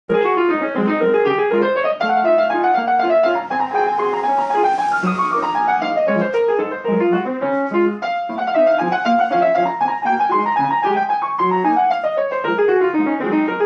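Piano playing, starting suddenly: quick runs that sweep down and back up several times over repeated low notes.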